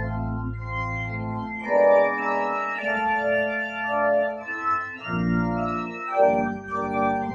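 Church organ playing slow, held chords that change every second or so, over a deep pedal bass that drops out and comes back.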